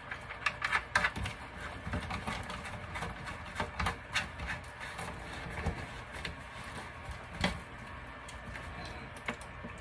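Hands threading a locknut onto a cable gland in the wall of a plastic electrical enclosure: scattered soft clicks and knocks of the nut and the handled box, one sharper knock about three quarters of the way through.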